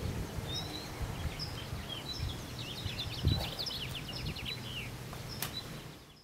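Small birds chirping and twittering in quick, overlapping short calls over a low outdoor background rumble, with one brief low sound about three seconds in; it all fades out just before the end.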